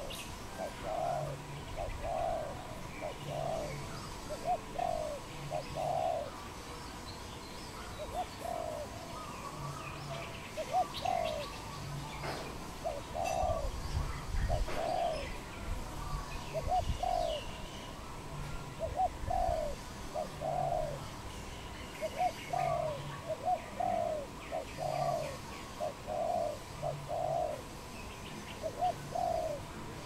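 Spotted dove cooing: short soft coos repeated in groups of two or three. Faint chirps from small birds sound in the background.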